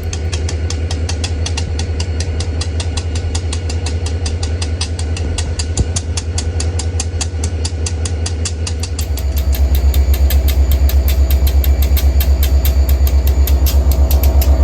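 Diesel locomotive engine running with a deep, even throb. It grows louder about nine seconds in.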